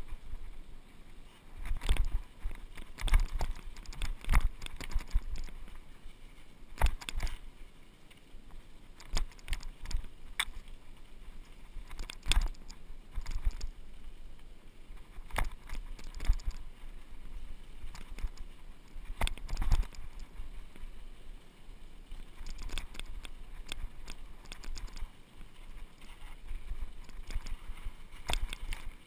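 Fuji hardtail mountain bike rattling down a rough dirt and rock trail, picked up through a handlebar-mounted camera: irregular sharp knocks and clatter from the bike jolting over bumps, over a low rumble of tyres and wind.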